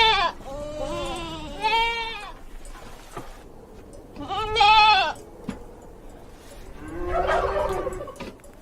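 Farm livestock bleating: four or five separate wavering bleats, each under a second, the loudest about halfway through and a rougher, noisier one near the end.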